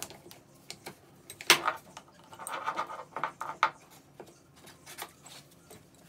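Rubber strap wrench being wrapped and tightened around a spin-on fuel water separator filter canister: scattered clicks and knocks of the wrench handle and strap, with some rubbing in the middle and the sharpest knock about a second and a half in.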